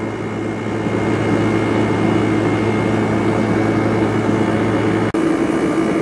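110-volt window air conditioner running full blast, a steady rush of fan and compressor noise with a low hum; the hum drops out abruptly about five seconds in while the rushing noise goes on.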